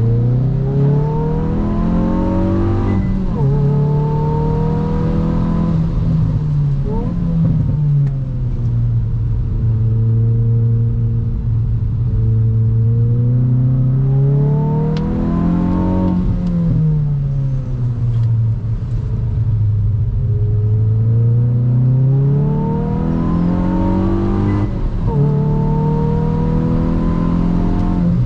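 Hyundai i20 N's 1.6-litre turbo engine heard from inside the cabin, pulling hard through the gears of its six-speed manual. The revs climb and drop with upshifts at about 3 and 7 seconds in, fall away for several seconds past the middle, then climb again to another shift near the end.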